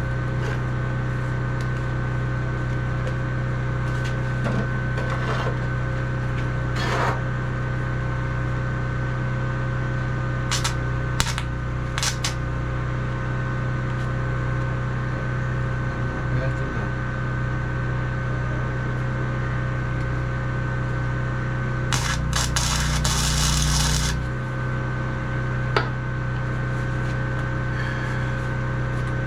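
Steady electrical hum of a powered-up MIG welder, with a few sharp clicks. About 22 seconds in comes a two-second hissing, crackling burst, during which the low hum shifts.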